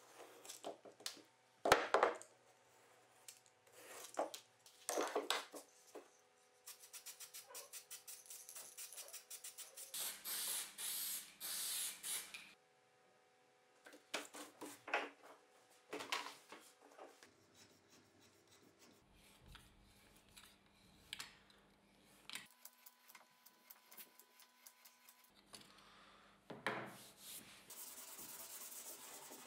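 Hand-work on rubber sheet for a vise jaw: a utility knife scraping and cutting through the rubber in short strokes, a hiss lasting a couple of seconds about ten seconds in, and near the end a sanding block rubbing along the rubber's edge.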